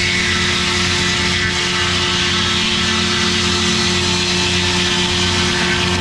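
A large circular sawmill blade ripping lengthwise through a log, a steady dense hiss of the cut, over the steady drone of a 1953 Detroit two-stroke diesel power unit working under load.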